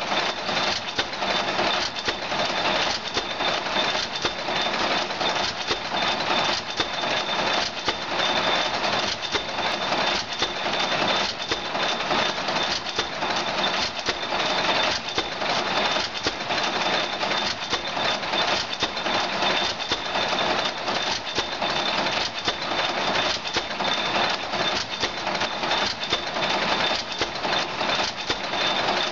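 Antique hopper-cooled stationary engine with twin flywheels running, with a steady mechanical clatter.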